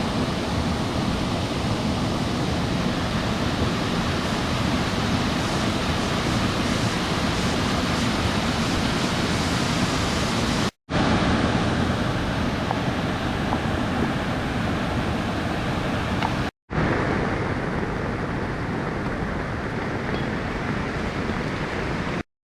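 Steady rushing of falling water, a waterfall or fast stream, cut off sharply twice for a moment and duller after the second break.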